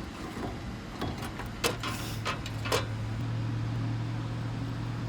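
A steady low engine hum, with several sharp clicks and knocks in the first three seconds and a brief hiss in the middle of them.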